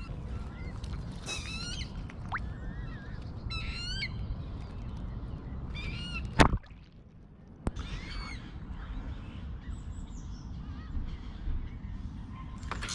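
Songbirds calling and singing in short repeated phrases over a steady low rumble. About six seconds in, a single sudden sharp knock is the loudest sound.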